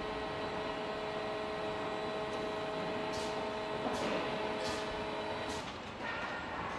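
Car assembly-line factory noise: a steady machine hum over a noisy background, with four short hisses in the second half. The hum stops about five and a half seconds in, leaving a quieter workshop background.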